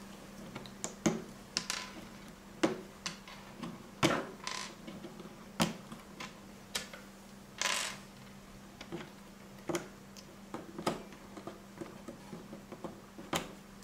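Plastic control knobs being pulled off their shafts and set down on a wooden tabletop: a string of irregular light clicks and taps, with a brief rustle a little past halfway. A faint steady low hum runs underneath.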